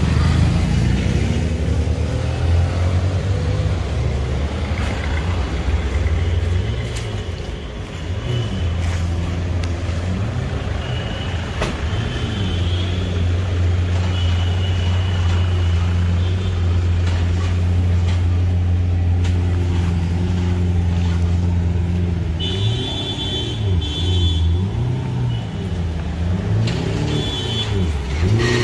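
Lamborghini supercar engine idling, its pitch dipping and rising several times.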